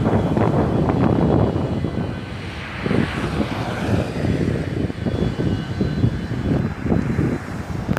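Boeing 737 jet engines at takeoff power: a loud, crackling rumble that eases a little after about two seconds.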